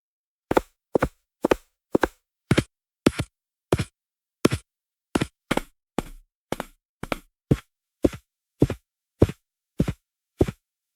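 Footsteps at a brisk pace, about two steps a second, each step a short double knock of heel then toe, with dead silence between steps.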